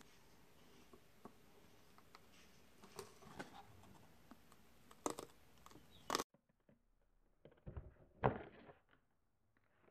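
Light clicks and taps of a cardboard takeaway box being handled, with two louder thumps near the end.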